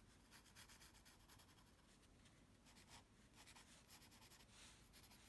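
Faint scratching of a graphite pencil on drawing paper, a run of short, repeated strokes as a hand drawing is shaded.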